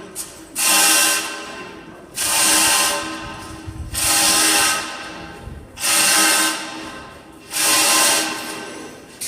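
A hand-operated hoist being worked stroke by stroke to lift a heavy bell, a rasping ratchet-and-chain stroke about every second and a half, each fading before the next, with steady ringing tones underneath.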